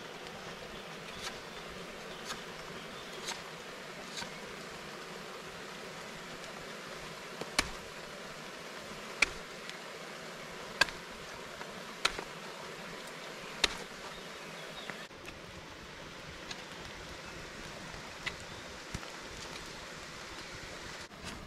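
A fixed-blade knife carving a wooden stick: sharp cutting snicks every second or two, loudest in the middle, thinning out after about fifteen seconds, over a steady background hiss.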